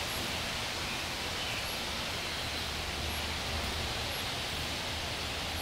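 Steady background noise: an even hiss with a faint low hum underneath, with no distinct handling clicks or knocks.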